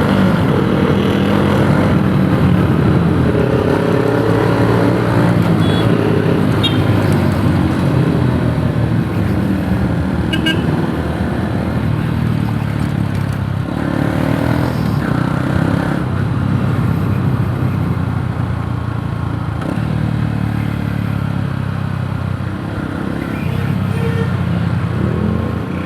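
Yamaha YTX 125 single-cylinder four-stroke motorcycle engine running under way while ridden, its revs rising and dropping several times.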